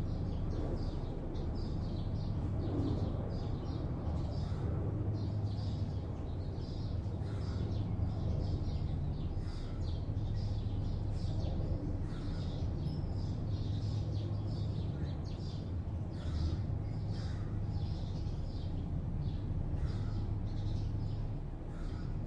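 Steady low hum of city traffic, with many small birds chirping over it in short, high, repeated calls.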